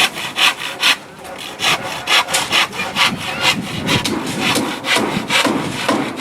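Hand saw cutting with quick, repeated back-and-forth strokes, roughly two to three a second.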